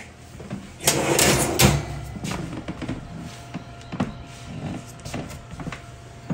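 Kitchen handling noises around an open oven: a louder clatter about a second in, then scattered knocks and clicks, and a sharp knock at the end as a metal sheet pan goes onto the oven rack.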